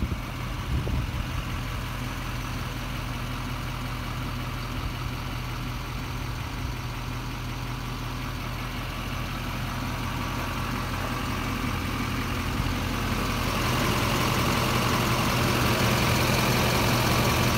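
The 6.6-litre Duramax turbo diesel of a Chevrolet C4500 Kodiak idling steadily. It grows louder, with more hiss, over the last few seconds.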